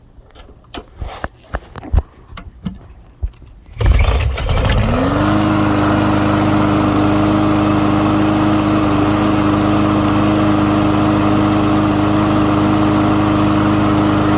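Craftsman 725 walk-behind lawn mower's small engine being pull-started, running with its air filter off. After a few seconds of scattered clicks and knocks, it catches about four seconds in, revs up over about a second, then runs at a steady speed.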